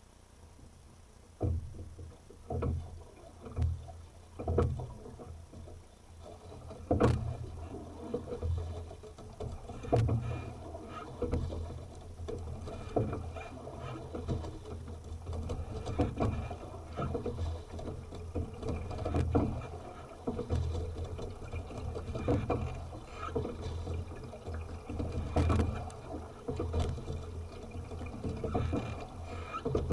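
Sculling boat being rowed: water rushing and splashing against the hull in a repeating surge with each stroke, starting about a second and a half in, with a few sharp clicks from the oars and rigging.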